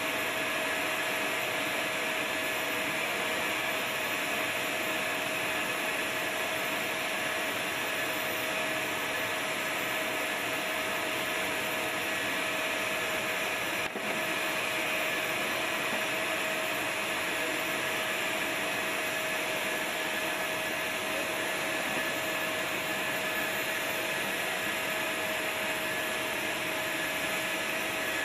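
Steady running machinery: a constant whine over a rushing hiss, unchanging, with a brief dropout about halfway through.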